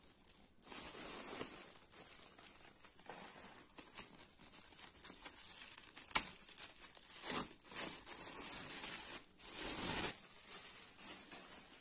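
Clear plastic film wrapped around badminton rackets crinkling and rustling in irregular stretches as it is handled and pulled at, with one sharp click about six seconds in.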